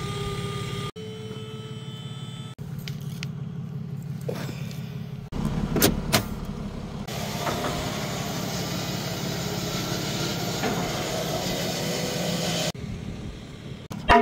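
Hydraulic pump of a roll-off dumpster trailer running as the bed tilts up to drop a 20-yard steel dumpster, over a truck engine idling. There are a couple of sharp metal knocks about six seconds in.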